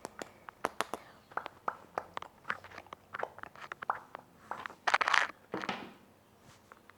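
Irregular quick clicks and crackles made right against a headset microphone, with a louder rustling burst about five seconds in.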